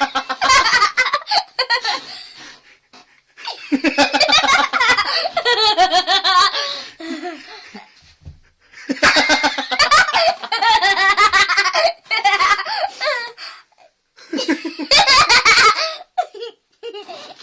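A young girl laughing hard in four long, loud bouts of giggling with short pauses between.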